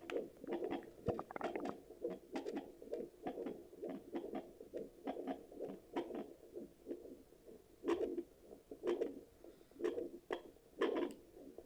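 Sonoline B handheld fetal Doppler's speaker giving out whooshing, scratchy pulses as the probe searches over the skin. About two-thirds of the way through, the pulses settle into a regular beat of about one a second, like a picked-up heartbeat.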